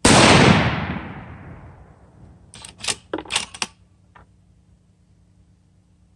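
A single shot from a Savage Trophy Predator Hunter bolt-action rifle in .243 Winchester: a sharp report that rings out and dies away over about two seconds. About two and a half seconds in comes a quick run of metallic clacks as the bolt is worked to eject the spent case, then one small click a moment later.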